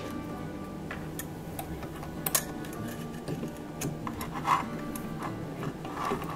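Scattered small metal clicks and clinks from a rotary buttonhole attachment being hooked onto a treadle sewing machine's presser bar, the two loudest about two and four and a half seconds in. Soft background music plays under it.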